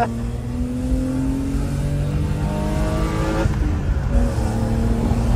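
BMW E34's engine accelerating through the gears, heard from inside the cabin: the revs climb steadily, then about two-thirds of the way through they drop as the manual gearbox is shifted up, and the engine pulls on at lower revs.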